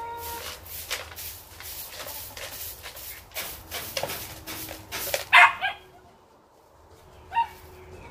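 Broom sweeping the dirt floor of a chicken run in brisk scratchy strokes, about two or three a second. The sweeping stops about five seconds in with one loud, short, bark-like animal call, and a fainter call follows near the end.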